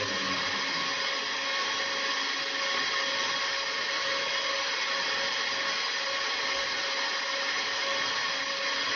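Jeweller's flexible-shaft rotary tool running at a steady speed with a steady whine as its sandpaper bit sands a silver bracelet in the finishing stage.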